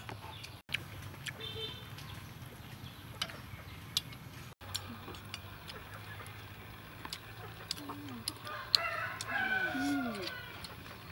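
A rooster crowing, loudest in one long call about nine seconds in, over light clicks of chopsticks against plates.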